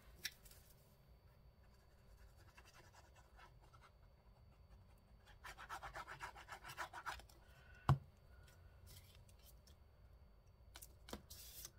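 Paper being rubbed and scratched by hand during craft work, faint, with a run of quick scrubbing strokes about halfway through. A single sharp tap follows, then a few small clicks near the end.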